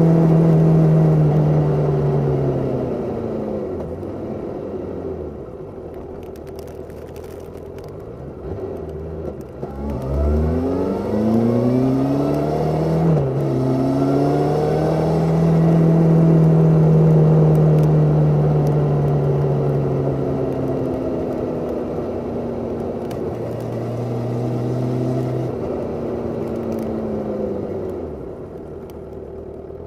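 Suzuki Katana 750 inline-four engine under way, heard from under the seat. The revs fall away over the first few seconds, climb quickly about ten seconds in, drop sharply at a gear change, then settle into a steady pull before stepping down and easing off near the end.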